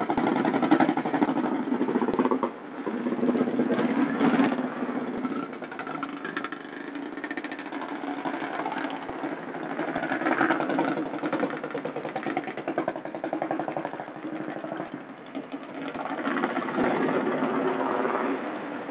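Vehicle engine running at idle with a rapid, even firing beat, swelling and easing off several times.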